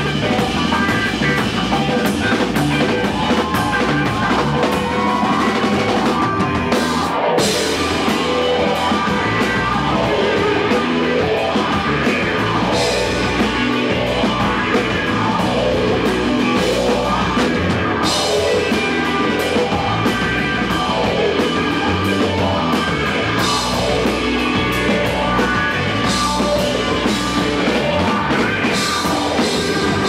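Rock band playing live: electric guitar and drum kit, loud and continuous.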